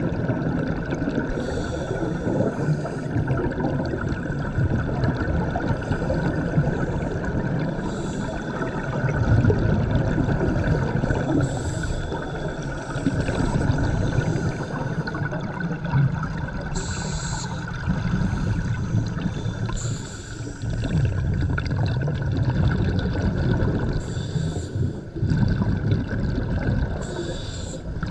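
Scuba regulator breathing heard underwater: short hissing inhalations through the demand valve, each followed by a rumbling, gurgling rush of exhaled bubbles, repeating every few seconds.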